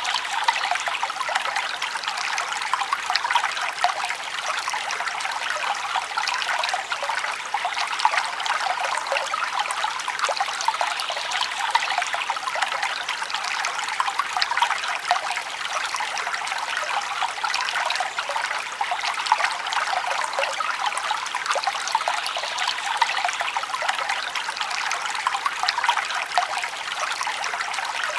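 Small forest stream trickling and babbling steadily, a bright, even splashing with fine flickers and little low rumble.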